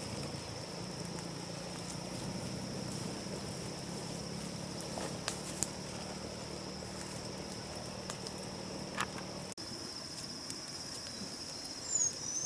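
Steady high-pitched insect chorus in the forest, with a few sharp clicks and a short high gliding chirp near the end.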